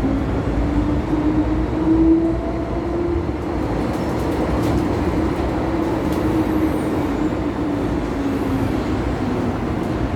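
MTR M-train metro car running, heard from inside the carriage: a steady low rumble with a whine that rises to a peak about two seconds in and then slowly falls.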